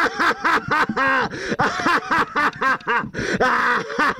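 A man's villainous laugh: a long run of short, pitched 'ha' syllables, about four or five a second, each rising and falling in pitch.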